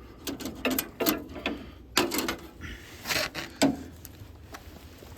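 Irregular sharp metallic clicks and clanks of hand tools working on the heat pump's copper coil-to-manifold connections as they are cut and the coil is freed. The clicks come thickly at first and thin out near the end.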